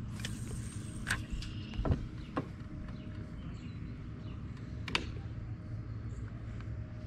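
Casting and reeling with a baitcasting fishing reel: a brief high whine in the first second or so, then a few sharp clicks and one dull thump, over a steady low hum.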